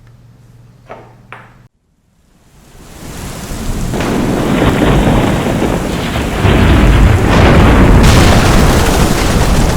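A couple of faint clinks in room tone, then a moment of dead silence, then a loud rumbling, rushing noise like thunder and heavy rain that swells in over about two seconds and stays loud.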